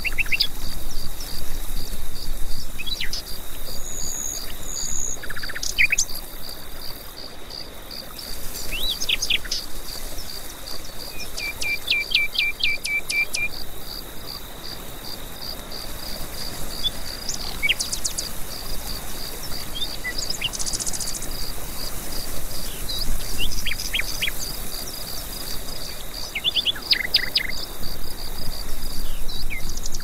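Birds calling and singing with short chirps, quick down-slurred whistles and a rapid trill about twelve seconds in, over a steady, evenly pulsing insect chirping.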